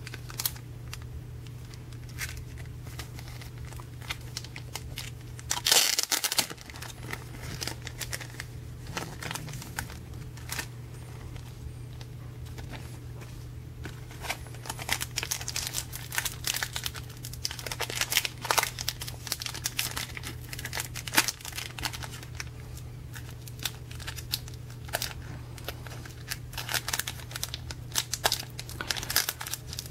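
Foil wrapper of a Pokémon Team Rocket booster pack crinkling and tearing in the hands as it is opened, in scattered crackles with a louder burst about six seconds in and denser runs of crinkling later on.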